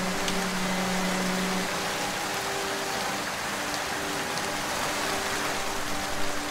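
Steady rain falling, an even dense hiss, with soft sustained low notes of relaxation music held beneath it; one low note stops a little under two seconds in while higher ones carry on.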